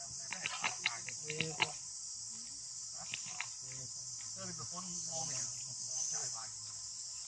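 A steady, high-pitched chorus of chirring insects, with a few sharp clicks in the first couple of seconds.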